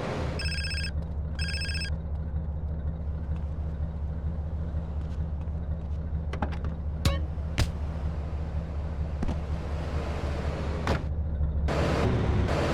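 Two short electronic ringing tones about a second apart, over a steady low hum, followed by a few sharp clicks and a louder noisy rise near the end.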